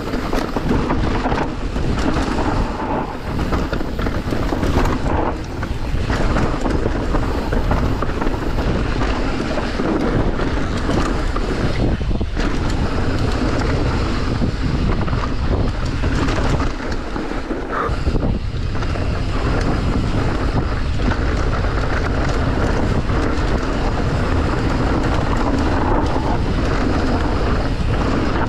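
Wind buffeting the microphone over the steady rough rumble and rattle of a mountain bike riding fast down a trail, with no let-up apart from a brief easing about 17 seconds in.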